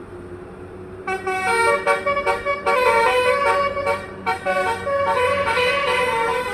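A bus's basuri musical air horn (telolet) playing a quick melody of changing notes, starting about a second in over the low rumble of the bus.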